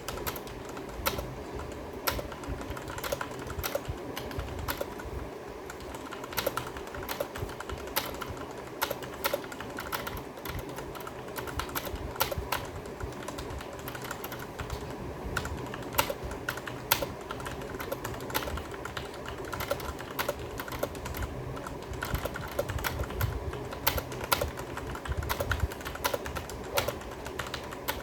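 Typing on a Cosmic Byte CB-GK-18 mechanical keyboard with Outemu Red linear switches: a continuous, irregular run of key clacks.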